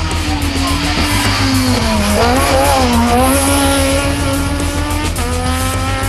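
Rally car engine running at high revs as it passes. Its pitch dips twice about two to three seconds in, then climbs again and holds.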